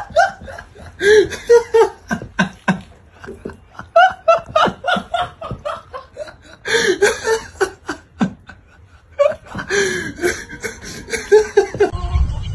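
A person laughing in several bouts of giggling and chuckling, with breathy in-breaths between the bouts.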